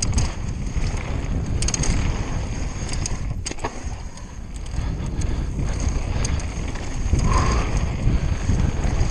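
Conway WME mountain bike riding fast down a rough, rocky downhill trail: tyres rolling over rock and gravel, and the bike rattling with many sharp clicks and knocks. Wind rushes steadily over the microphone.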